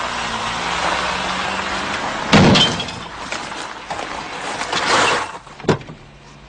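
A car running up a driveway, then a loud crunching impact about two seconds in as its underside strikes the road, followed by a second scraping bang near five seconds and a sharp click. This is the knock that cracks the car's oil sump.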